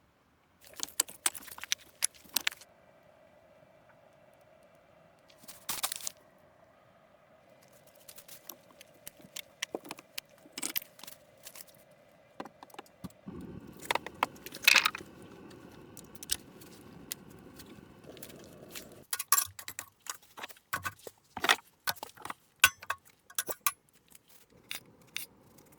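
Irregular sharp clicks and clinks of small hard objects knocking together, over a faint steady hum, with a stretch of low rushing noise in the middle.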